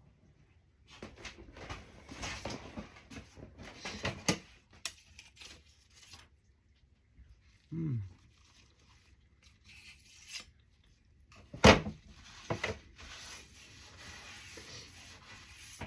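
Kitchen handling noises: rubbing and scraping with scattered clicks and knocks, the loudest a sharp knock about twelve seconds in, and a brief falling pitched sound near the middle.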